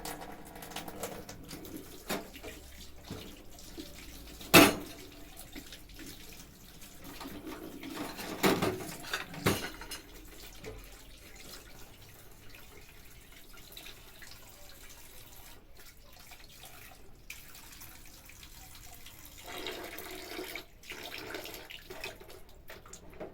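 Washing at a sink: water running, with scattered knocks and clatter. The loudest is a sharp knock about four and a half seconds in, and another cluster of clatter comes around eight to ten seconds in.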